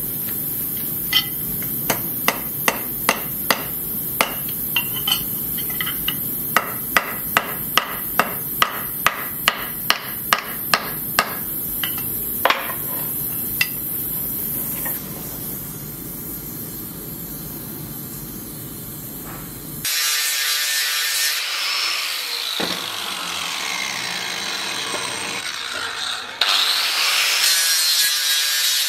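A hand hammer strikes a hot steel part on an anvil: about twenty sharp, ringing blows over the first 14 seconds, about two a second in the middle, over a steady low rush. About 20 seconds in, an angle grinder takes over with a high whine, and it grows louder as it bites into steel clamped in a vise near the end.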